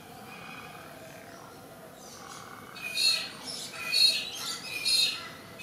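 Crow calling: three loud calls about a second apart, starting about halfway through.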